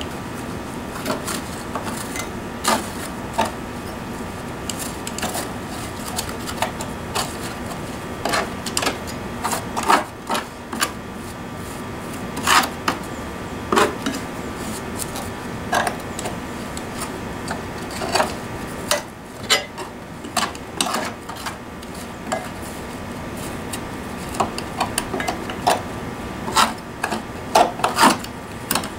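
Hand scraper scraping caked, compacted grass clippings off the underside of a mower deck, in irregular strokes with sharp scrapes and clicks.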